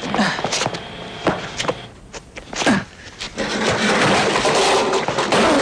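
A series of sharp knocks and clatters, then a dense steady noise that sets in about three and a half seconds in.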